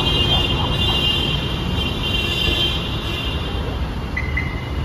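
Steady road traffic noise from passing cars, with a high steady tone over roughly the first three seconds and two short high tones near the end.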